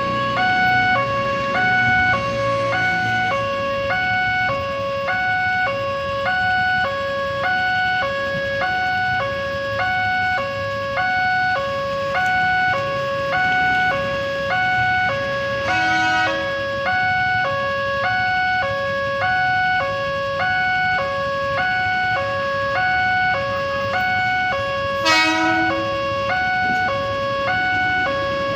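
Railway level-crossing warning siren sounding a steady electronic two-note alarm, switching between a high and a low note about once a second, the signal that the crossing is closed for an approaching train. A brief, louder sweeping sound breaks in about 25 seconds in, with a fainter one around 16 seconds.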